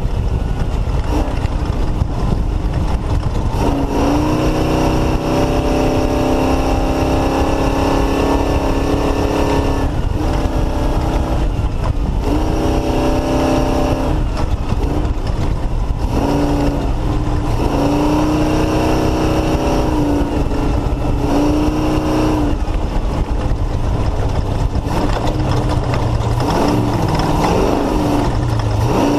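Off-road race car engine running hard, its revs climbing, holding high for a few seconds, then dropping and climbing again over and over through gear changes and lifts, over a constant noisy rumble.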